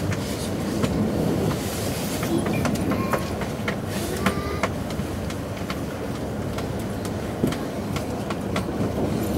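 E5 series Shinkansen rolling along as heard inside the passenger cabin: a steady low rumble with scattered sharp clicks and a few short, high wheel squeals, as the train pulls into its terminus.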